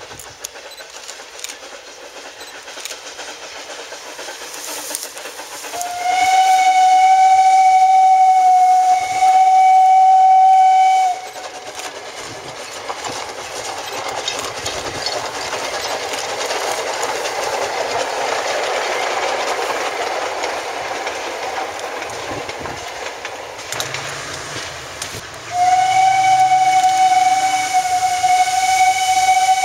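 Narrow-gauge Las49 steam locomotive whistle: a long steady blast about six seconds in, briefly broken near the middle, then the train passing with a swelling and fading rush of noise, then another long whistle blast near the end.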